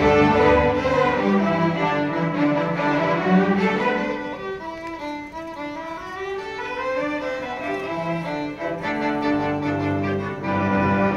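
Student string orchestra playing live, violins and cellos bowing sustained notes. The music softens about four seconds in, the lines sinking and then climbing back, and swells again near the end.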